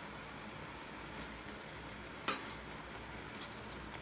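Ground pork being stirred into a hot pot of glass noodles: a steady low sizzle, with a metal ladle knocking against the stainless steel pot about a second in and a little past two seconds.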